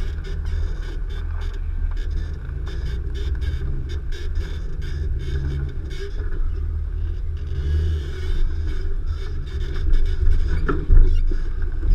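Nissan Xterra's 4.0-litre V6 engine running at low speed off-road, its pitch rising and falling, over a heavy low rumble with rattles and clicks, and a couple of louder knocks near the end.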